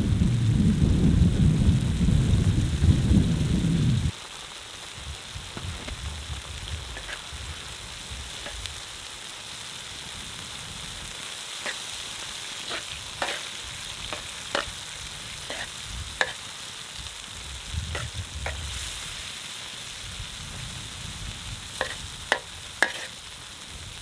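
Eggs, tomatoes and peppers sizzling in a large black steel wok, with a metal spatula repeatedly scraping against the pan as the mixture is stirred. A loud low rumble covers the start and cuts off suddenly about four seconds in.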